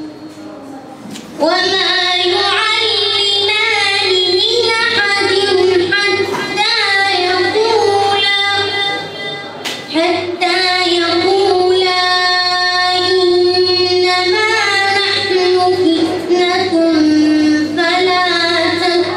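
A boy reciting the Quran in melodic tajweed style, drawing out long held notes. He begins after a pause of about a second and a half and takes a short breath about halfway.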